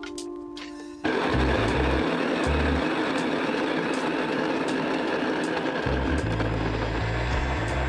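Wilfa electric coffee grinder switching on about a second in and grinding coffee beans: a loud, steady grinding noise with a low motor hum that comes and goes.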